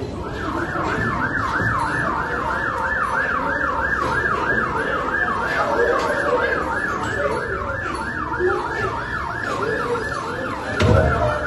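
Ambulance-style electronic siren in a fast yelp, its pitch sweeping up and down about three times a second without a break. A thump sounds near the end.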